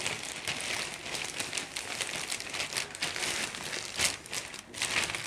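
Thin clear plastic wrapper crinkling and rustling as it is pulled up and off a speaker cabinet, with steady crackles and a few louder ones about four seconds in.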